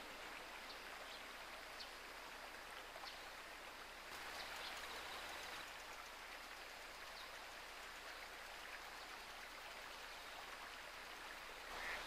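Steady rushing of a small river's flowing water, with a few faint, brief high chirps.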